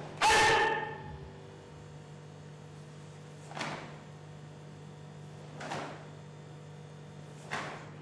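A karateka's sharp kiai shout on a stepping punch, loudest just after the start and fading within about half a second. Then come three softer swishes of the cotton gi and bare feet on the floor, about two seconds apart, as the kata moves continue.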